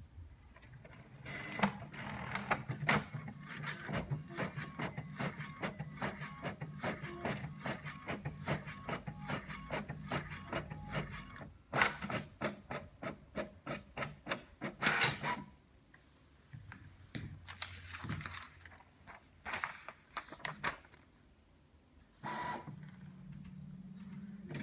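Brother MFC-J6510DW inkjet printer printing a page: a long run of rapid mechanical clicks and whirs from the print carriage and paper feed over a low motor hum. The run stops about fifteen seconds in, and a few quieter clicks and a short whir follow.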